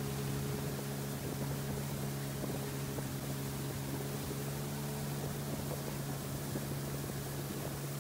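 Motorboat engine running steadily at planing speed, one unchanging pitch over a constant hiss of water and wind.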